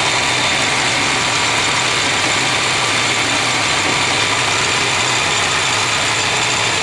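South Bend 10-inch Heavy metal lathe running steadily under power carriage feed, its motor and drive making an even mechanical whir while the tool takes a taper-turning pass on the spinning workpiece.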